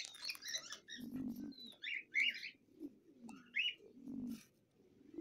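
Pigeon cooing: several short, low coos with higher chirping calls between them.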